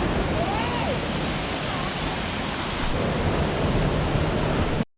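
Waterfall: a steady, dense rush of falling water. A brief drop to silence cuts it off just before the end.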